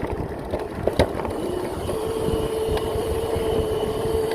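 Razor MX650 electric pit bike, converted to a 5000 W motor on a 72 V battery, being ridden: a steady motor whine that steps up slightly in pitch about two seconds in and holds, over a low rumble, with one sharp knock about a second in.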